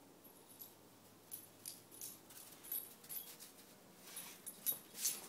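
Faint crunching footsteps in icy snow, a string of short crackles about two a second, the loudest near the end.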